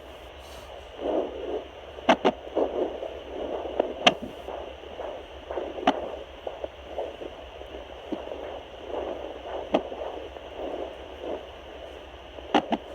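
Fetal Doppler's amplified swishing pulse from inside a pregnant belly, broken every two to four seconds by a sharp thump, some of them doubled: the unborn baby's hiccups, which are hefty.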